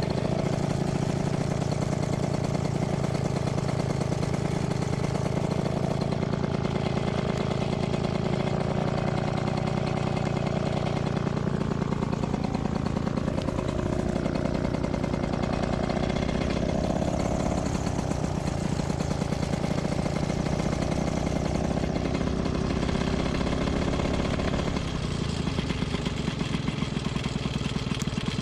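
Paramotor engine idling steadily, its note changing slightly near the end.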